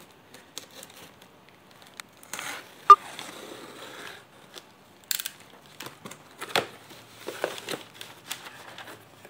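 A cardboard shipping package being handled and opened: rustling and scraping with scattered clicks, and one sharp click about three seconds in.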